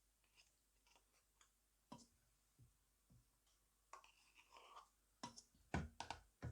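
Faint clicks and light scraping of kitchen utensils as a thick cooked cornstarch-and-milk topping is scooped from a pot, with a few sharper clicks near the end.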